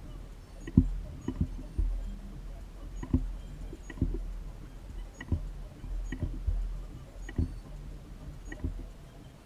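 Irregular dull knocks and taps, roughly one a second, over a steady low hum.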